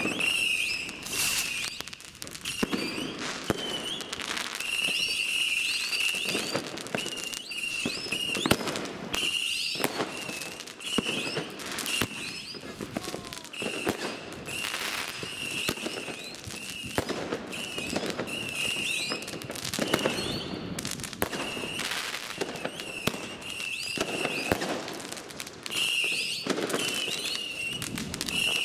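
Consumer firework batteries and single shots, linked by fuse, firing one after another: a long run of launch pops and bursting bangs, with a high whistling that comes and goes between them.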